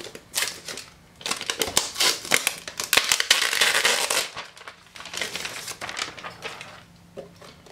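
Clear plastic wrap crinkling and rustling as a new Mac mini is unwrapped and turned over in the hands, with a few small clicks. It is loudest about three to four seconds in and dies down near the end.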